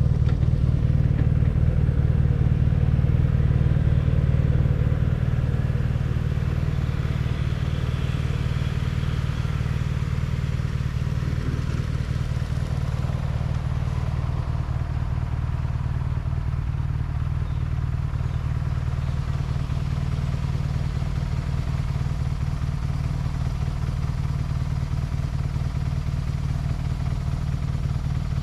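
BMW R nineT's air/oil-cooled boxer twin engine running steadily as the motorcycle is ridden, easing to a slightly quieter, lower-load sound about six seconds in.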